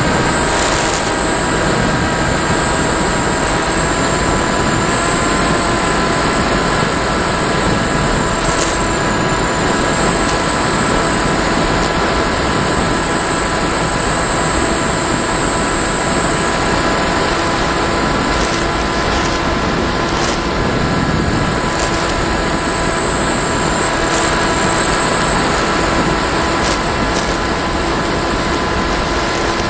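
Electric RC motor glider in flight, heard from its onboard camera: a steady rush of air with several steady tones and a high whine that drifts up and down in pitch.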